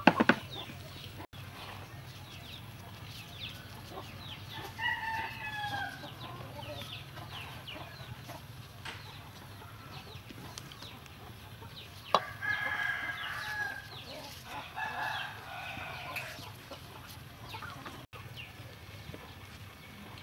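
Chickens clucking, with a rooster crowing twice, about five seconds in and again about twelve seconds in.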